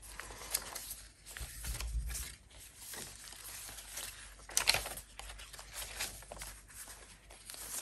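Paper pages of a thick handmade junk journal being leafed through by hand: a run of soft rustles and flicks as the pages turn, the sharpest flick just before five seconds in, with a dull low bump around two seconds in.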